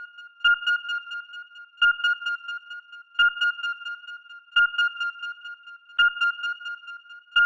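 Electronic beeping: a steady high-pitched tone that swells into a stuttering burst of beeps about every second and a half, with a soft low thump at the start of each burst.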